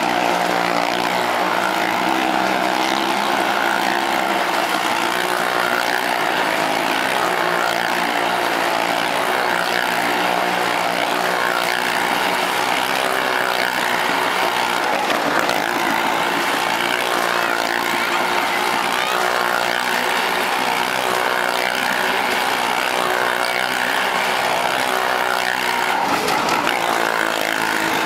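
Motorcycle engines running hard as they circle the wooden wall of a well-of-death drum. The engine note wavers up and down continuously and stays loud.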